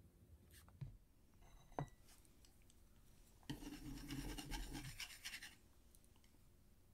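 Two light knocks, the second with a brief ringing clink, then about two seconds of rubbing and scraping: handling noise as the camera is moved from the table to face the eater.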